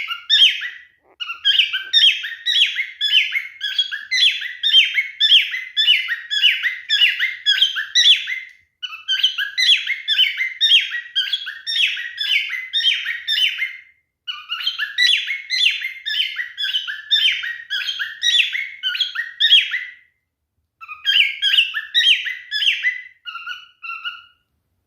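Male cockatiel singing: long runs of rapid, repeated chirping whistles, each phrase lasting five or six seconds, with short breaks between them. It ends in a few short, separate notes.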